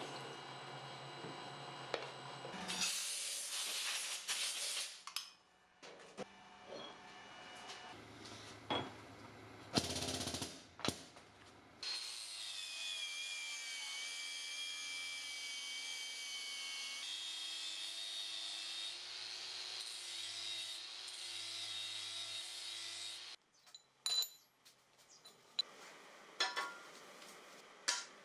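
Drilling in steel on a machine tool, then a few short bursts of power-tool cutting. Next an angle grinder grinds a steel bracket held in a vise for about eleven seconds, with a steady whine that steps up in pitch partway through. Near the end come a few light metal clinks and knocks as steel parts are handled.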